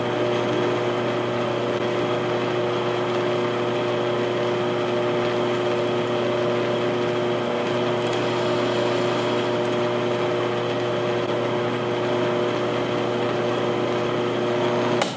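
Drill press running with a Tapmatic tapping head, tapping 2-56 threads into a titanium knife handle slab: an even motor hum with a few steady whining tones, switched off at the very end.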